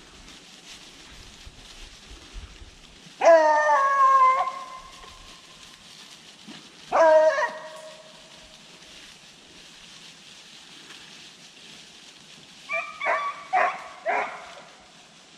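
Beagles baying: a long howl that falls in pitch about three seconds in, a shorter one around seven seconds, then a quick run of short chop barks near the end. These are hounds giving tongue as they work a rabbit's scent.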